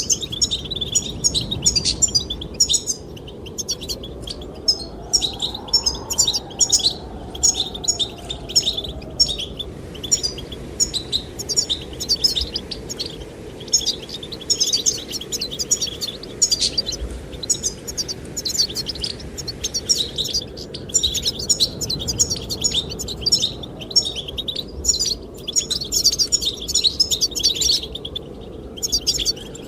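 Goldfinches singing, a continuous run of quick, closely packed twittering chirps with no real pauses, over a low steady rush of wind.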